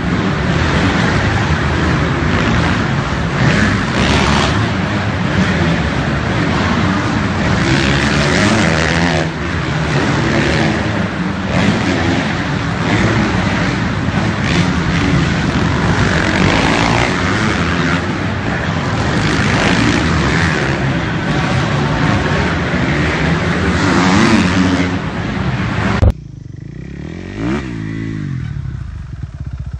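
Several dirt bike engines running and revving hard together, loud and continuous, their pitches rising and falling over one another. About four seconds before the end this cuts off suddenly to a quieter single dirt bike engine whose pitch rises and falls once.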